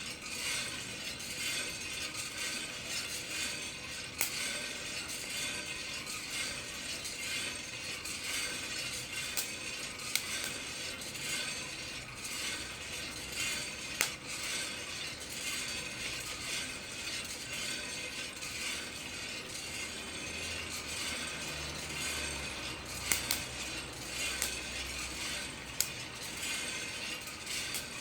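Coffee beans tumbling and rattling in the turning drum of a Kaldi home coffee roaster, with a handful of sharp single pops scattered through: beans cracking as they roast.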